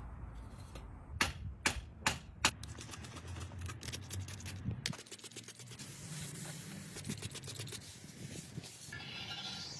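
Hand-tool work in a workshop: four sharp clicks about half a second apart, then a steady run of rapid clicking and scraping.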